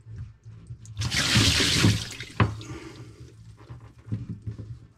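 Seawater rushing in through an open transducer through-hull fitting in a boat's hull for about a second while the blanking plug is swapped for the transducer, followed by a single sharp knock as the transducer goes home.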